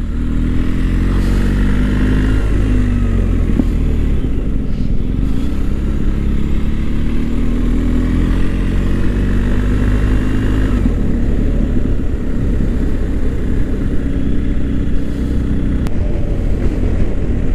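BMW R1250 GS boxer-twin motorcycle engine running under way, its pitch rising slowly as it pulls and dropping at a gear change, with wind rushing over the microphone.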